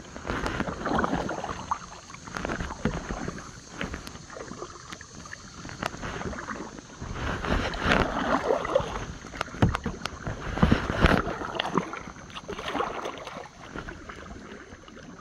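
Kayak paddle strokes: the paddle blades dip into the lake and splash, one stroke about every one and a half to two seconds.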